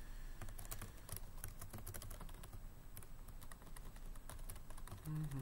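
Typing on a computer keyboard: irregular key clicks.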